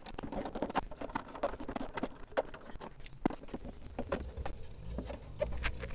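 Irregular clicks and knocks of plastic trim parts and fixings being handled and refitted with a hand tool inside a Porsche 981 Boxster's side air intake.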